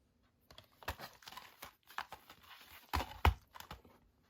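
Cardboard Blu-ray digipack being handled: rustling and light clicks, then two louder knocks close together about three seconds in.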